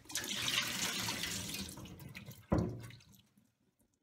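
Tap water running into and splashing out of a stainless steel bowl as shrimp are rinsed by hand, fading after about two seconds. A single sharp knock about two and a half seconds in as the bowl is set down in the stainless steel sink.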